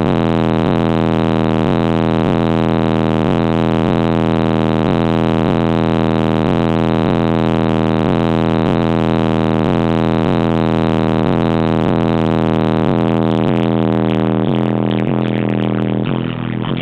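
Car subwoofers (American Bass HD, dual 2-ohm, in a ported box on a Crunch 1500.1 amplifier) playing a bass-heavy track loud, with a heavy low bass line and a beat of falling bass notes about every 0.7 s. The bass eases off near the end.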